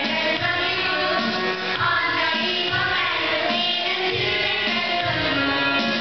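Children's choir singing a song with instrumental accompaniment and a steady low beat.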